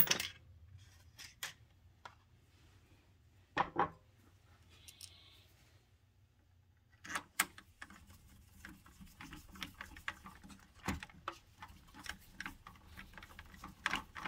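Hand screwdriver driving a small screw through a circuit board into a CD player's tray mechanism. A few sharp clicks come first. From about seven seconds in, a steady run of fine ticks and scraping follows as the screw is turned in.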